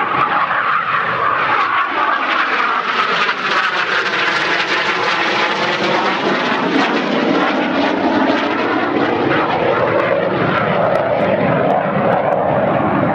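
IAR 99 Soim jet trainer's single Rolls-Royce Viper turbojet, loud and steady as the aircraft manoeuvres overhead, its tone sweeping slowly up and down as it moves across the sky.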